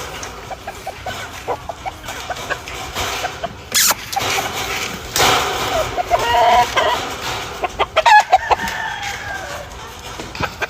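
Roosters crowing and hens clucking, one long crow about halfway through and another whose tail falls in pitch near the end, with a few sharp knocks between the calls.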